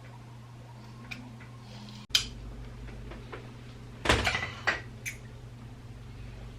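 Sharp clicks and clacks from handling a curling iron while curling hair: a loud clack about two seconds in and a quick cluster of clacks about four seconds in, over a steady low hum.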